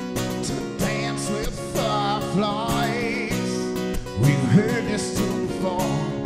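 Live solo acoustic guitar, strummed steadily, with a male voice singing over it.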